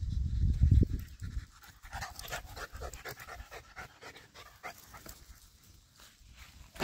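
Small Australian shepherd-mix dog panting quickly and rhythmically after a sprint, about five breaths a second, fading toward the end. A low rumble is heard over the first second or so.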